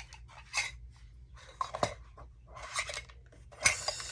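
Contents being handled inside an opened metal tin: four short bursts of rustling with light clicks and clinks, about one a second.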